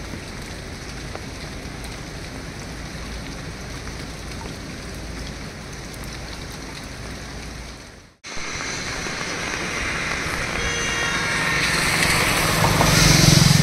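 Steady hiss of heavy rain and the swollen, rushing river. It breaks off sharply about eight seconds in, and a louder passage follows in which an engine hum builds toward the end.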